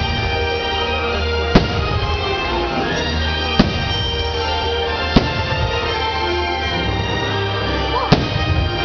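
Fireworks bursting: four sharp bangs, one to three seconds apart, over steady music from the fireworks show.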